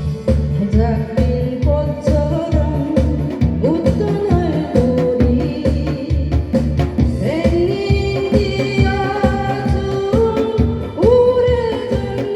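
Korean trot music played loud over a backing track with a steady thumping beat, a bending lead melody carrying the tune.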